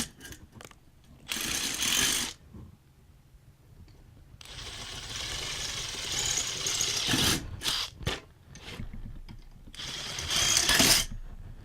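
Electric drill running in three short spells, boring out screw holes that are too small so that the screws will fit.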